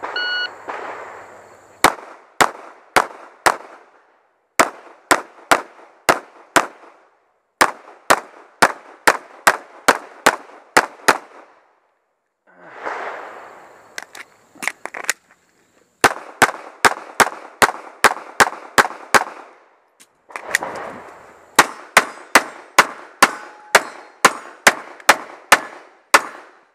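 Shot timer start beep, then a semi-automatic pistol fired close up in quick strings of several shots, about two to three a second, with short pauses between the strings.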